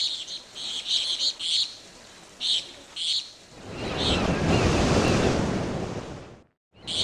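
Sound effects for an animated logo intro: a series of short, high chirps, then a rushing swell of noise that builds for a couple of seconds and cuts off suddenly near the end.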